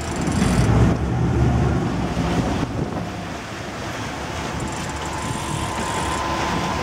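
Wind buffeting the microphone over a boat's running engine and rushing water, with a heavy low rumble of wind in the first two seconds.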